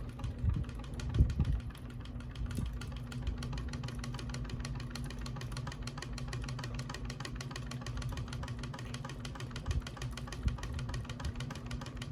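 Ceiling fan running, its motor humming steadily under a fast, even rattle from blades that are not screwed in tight enough.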